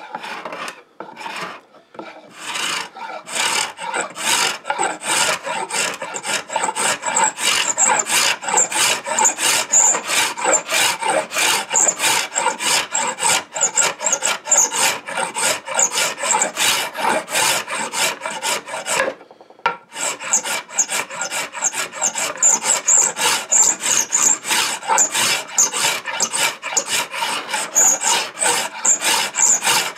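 Shop-made scratch stock scraped rapidly back and forth along the edge of a mahogany board, its cutter scratching a bead profile into the wood. A steady run of quick rasping strokes, with one brief pause about two-thirds of the way through.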